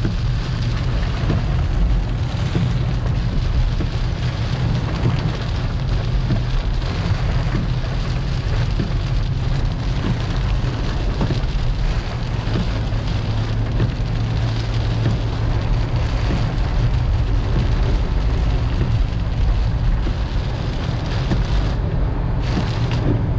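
Rain falling on a moving car, heard over a steady low rumble of road and engine noise, with many small drop impacts.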